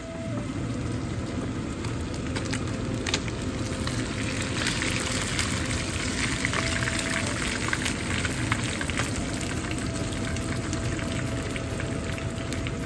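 Rainbow snapper frying in hot oil: steady sizzling with frequent crackles and pops, louder from about four seconds in.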